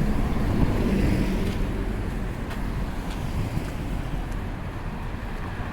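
Street traffic at an intersection: a heavy vehicle's low engine rumble, likely a city bus pulling away, fading as it drives off, with light wind on the microphone.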